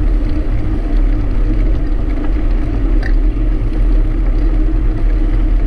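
Wind rumbling on the microphone of a camera riding along on a moving bicycle, a steady loud low rumble with a constant hum underneath.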